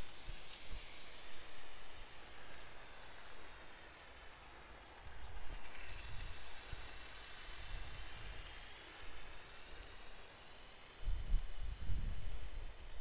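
Diet Coke jetting out in a hissing spray through holes punched in a plastic soda bottle's cap, driven by Mentos foaming the soda; the hiss is loudest at first. Low rumbles come in near the end.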